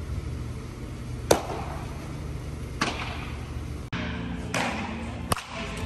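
Sharp, isolated baseball impacts: a pitch popping into a catcher's mitt about a second in, another pop a little later, then a few cracks and thuds of balls being hit during batting practice.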